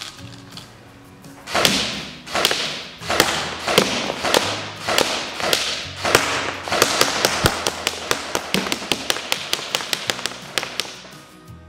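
ARES AM-014 airsoft electric gun firing single shots, each a sharp snap with a short decay. The shots come about once a second at first and speed up to three or four a second from about seven seconds in. Background music plays underneath.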